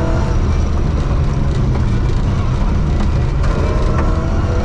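Ford Escort Mexico rally car's engine running hard at speed, heard from inside the stripped cabin, over a steady rush of gravel and road noise from the tyres on a loose forest track.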